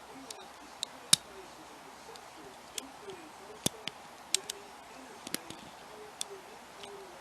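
Lock pick and tension tool clicking and ticking inside a pin-tumbler lock as it is picked in hand: about a dozen sharp, irregular clicks, the loudest a little over a second in. A faint wavering hum runs underneath.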